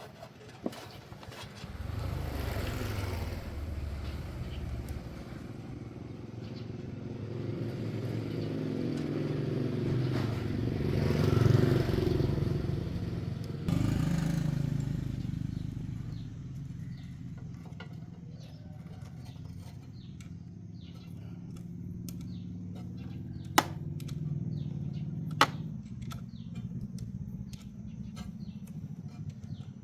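A vehicle running with a steady low rumble that swells to its loudest around eleven seconds in, then settles. Two sharp clicks come near the end.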